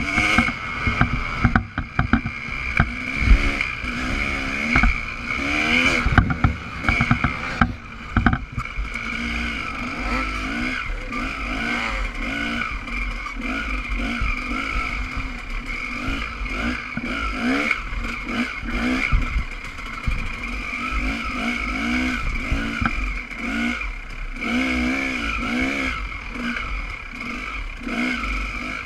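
Dirt bike engine being ridden hard, its pitch rising and falling again and again as the throttle is worked and gears change, with knocks and rattles from the bike hitting bumps, most often in the first eight seconds.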